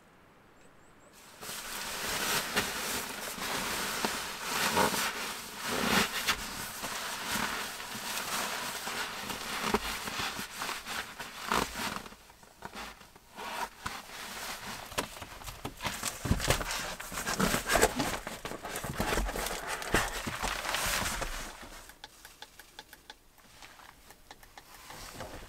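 Crinkly rustling and crackling of nylon fabric: a sleeping bag and its stuff sack being handled and packed, in a steady run of small rustles with a short pause midway and a quieter stretch near the end.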